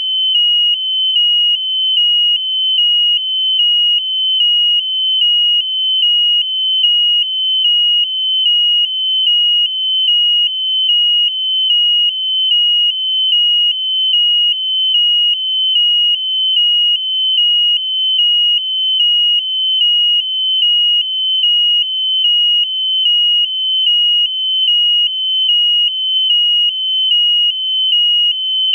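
Piezo buzzer on the high-altitude balloon payload beeping continuously: a loud, high electronic tone pulsing evenly about one and a half times a second, with a slight wobble in pitch on each beep.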